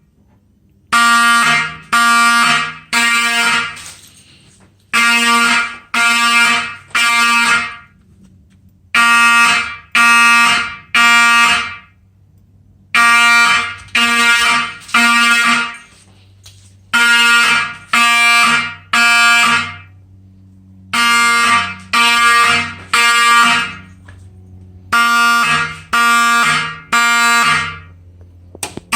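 Wheelock 34-24-WS fire alarm horn sounding the code-3 temporal pattern: three short buzzy blasts about a second apart, a pause, then three more, repeating throughout, meaning the system is in general alarm.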